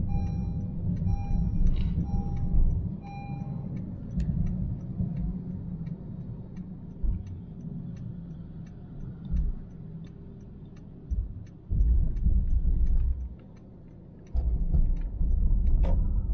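Car cabin while driving: steady low road and engine rumble, with an electronic beep repeating about twice a second for the first few seconds, then a light ticking at about the same pace. The rumble grows heavier in bursts near the end.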